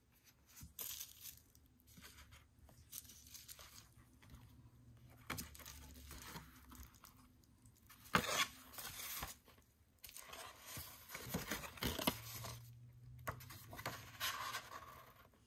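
Paper handling: a photo print is put down and the pages of a large softcover photobook are flipped and turned, rustling and flapping in irregular bursts. The loudest burst comes about eight seconds in.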